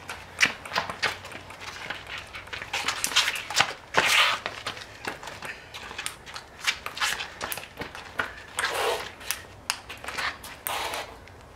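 A ping-pong rally on pavement: many sharp clicks of the ball bouncing on concrete and on the table and being struck by paddles, coming at an irregular pace. A few brief, louder scuffing noises come through, the loudest about four seconds in.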